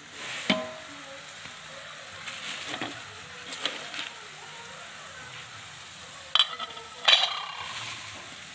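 Clear plastic film wrapped around a new electric cooking pot crinkling and rustling in short bursts as the pot is handled, loudest twice near the end.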